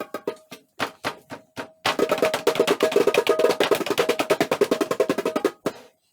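A drum being beaten: separate strokes at first, then from about two seconds in a fast, loud roll lasting several seconds that stops shortly before the end.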